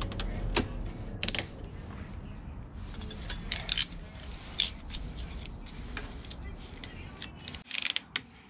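Hands handling plastic trim pieces and fasteners in a car's front end: scattered sharp clicks and plastic rattles, over a low steady hum.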